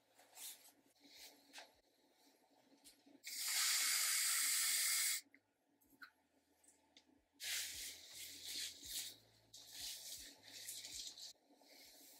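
A hair-product spray misting in one steady hiss of about two seconds that cuts off sharply. A few seconds later comes a quieter, uneven hissing and rustling.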